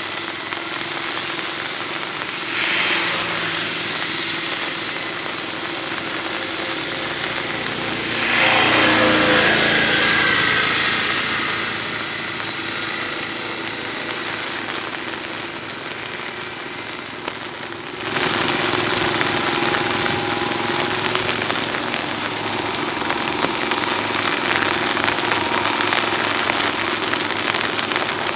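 Engine of a power tiller (two-wheel walking tractor) running steadily as it churns a flooded paddy field, with rain falling. The sound steps up suddenly in loudness about two-thirds of the way through.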